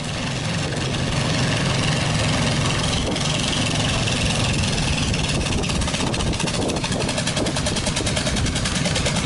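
Modified lawn tractor engine running loudly and steadily, getting a little louder in the first second.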